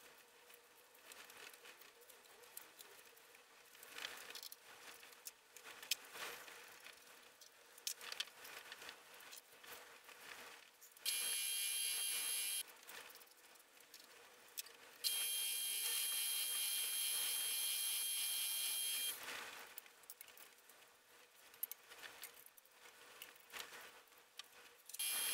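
Milling machine running while drilling holes in a metal plate: a steady machine sound with a high whine, on briefly about eleven seconds in, again for about four seconds from fifteen seconds, and once more at the very end. Between these, only faint crackles and clicks.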